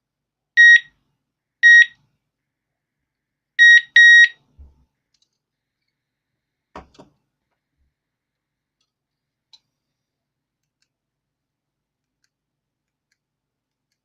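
Digoo DG-ROSA wireless alarm unit beeping: four short, high beeps, two about a second apart, then a quick double beep about two seconds later. A couple of faint clicks follow a few seconds after.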